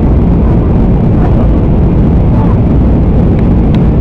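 Inside the cabin of a Blue Air Boeing 737 on descent, its turbofan engines and the airflow past the fuselage make a loud, steady, deep rumble, heard from a window seat beside the engine.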